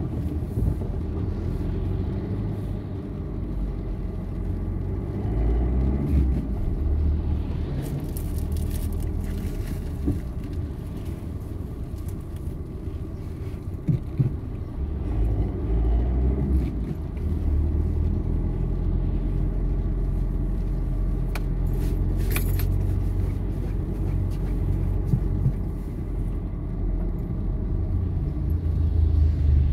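Car driving on a wet road, heard from inside the cabin: a steady low rumble of engine and tyres, with a few brief clicks.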